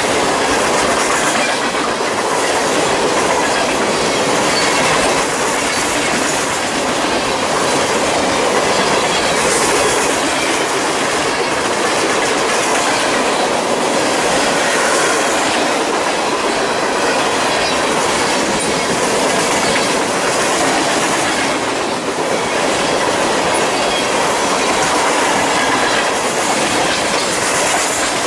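Freight train of refrigerated boxcars rolling steadily past on the adjacent track, its steel wheels running on the rails.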